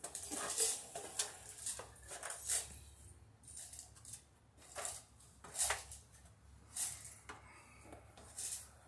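Light metallic clinks and rattles of hand tools and small hardware being handled, a dozen or so sharp clicks at irregular intervals.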